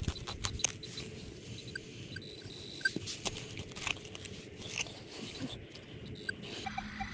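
Soil being dug and scraped: irregular crunching and sharp clicks. A few short, faint beeps come from a Minelab Equinox 800 metal detector.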